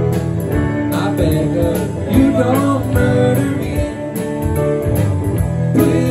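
Live band with electric guitars, bass, drums and keyboard playing a song through PA speakers.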